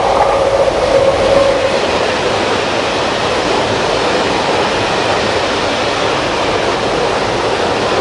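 Electric freight locomotive passing close at speed, a held whine heard in the first two seconds as it goes by, followed by a long string of loaded hopper wagons rolling past with steady wheel-on-rail noise.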